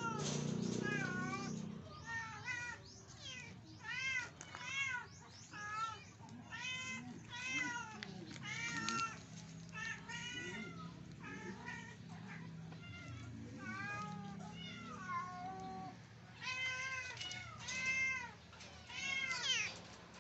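Young kitten meowing over and over, a string of short high-pitched cries that rise and fall, with a sparser stretch in the middle.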